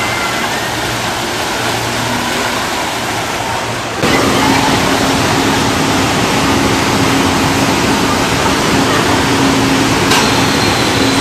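Rushing, churning water of a river-rapids ride channel. About four seconds in it cuts to a louder rush of water with a steady low hum under it.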